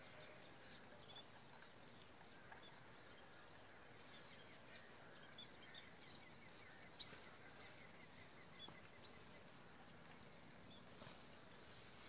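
Near silence: faint open-air ambience with a steady high insect-like hum and scattered small bird chirps, including a short quick trill near the middle.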